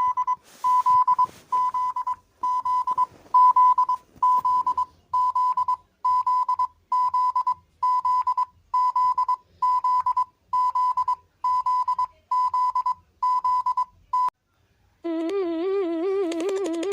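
Emergency alert broadcast tone: a series of short, evenly spaced high beeps, about three every two seconds, breaking off about 14 seconds in. About a second later a lower, wavering warble starts.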